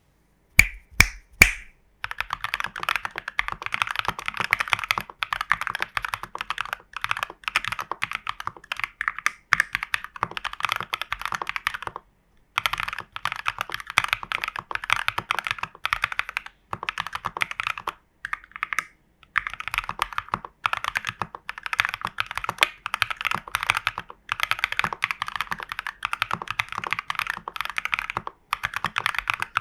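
Mechanical keyboard with KTT Strawberry linear switches in a plastic TU40 case, foam-filled and tape-modded, being typed on fast: three separate sharper key strikes first, then a steady rapid stream of keystrokes broken by a few short pauses.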